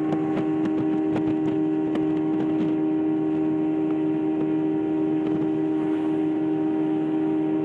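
Boat motor running at a steady speed, a droning hum that holds one pitch throughout, with scattered light knocks.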